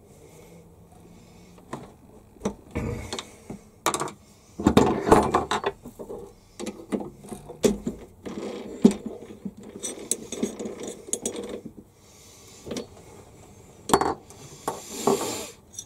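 Metal parts clinking, knocking and scraping against a lathe's three-jaw chuck as they are handled and fitted: irregular clicks and rattles, busiest in the middle, with a sharp knock near the end.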